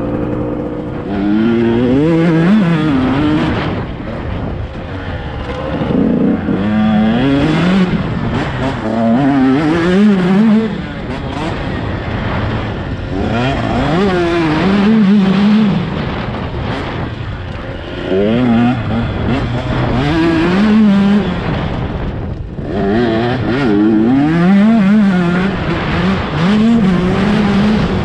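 Dirt bike engine revving hard under load, its pitch climbing and dropping back again and again as the rider works the throttle and shifts gears, with a few short lulls where the throttle is let off.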